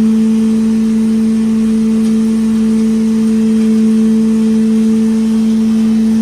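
Wood chipper and wood powder machine running steadily, a loud even hum held at one pitch with no change in speed or load.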